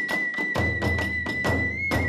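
Kagura festival music: a bamboo flute holding one high note over fast, even drum and hand-cymbal strikes, about five a second.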